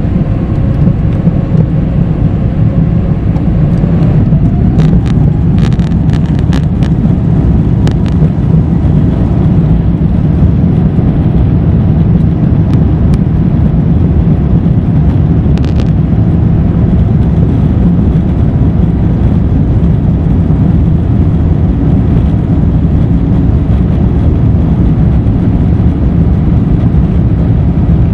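Inside the cabin of an Airbus A350-1000 on its takeoff roll: the Rolls-Royce Trent XWB-97 engines at takeoff thrust give a loud, steady rumble, with a whine that rises in pitch over the first few seconds. A few sharp clicks and rattles come in around five to eight seconds in and once more near the middle.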